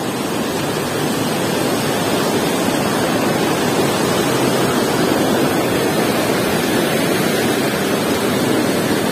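Steady rushing of a swift, shallow river running over rocks and boulders.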